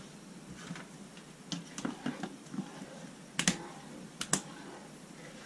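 Kitchen handling noise: scattered sharp clicks and knocks of utensils and a plastic food container being handled, the loudest a little past halfway.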